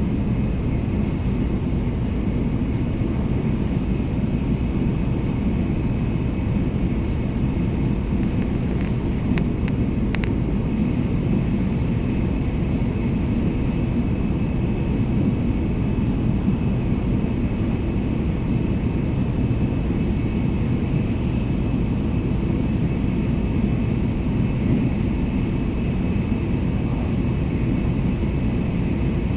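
Steady rumble of a Shinkansen bullet train running at speed, heard from inside the passenger cabin, with a faint high steady whine over it.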